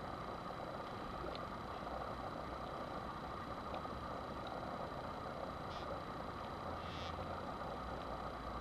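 Steady hum and hiss with a few faint, short clicks and scrapes of a tubing cutter being fitted and turned on a steel 12-gauge shotgun barrel.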